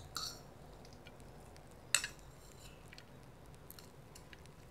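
A spoon scraping and tapping chopped chillies out of a small ceramic bowl: a light ringing clink just after the start and a sharper click about two seconds in, with faint ticks between.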